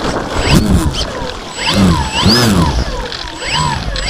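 Electric motor and propeller of a Parkzone Sport Cub RC plane revved in short bursts, about one every half-second, each burst rising and falling in pitch, over the slosh of lake water close to the microphone.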